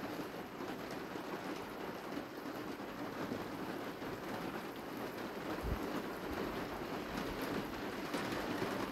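Steady rain falling, an even hiss with no break. One brief low thump about two-thirds of the way through.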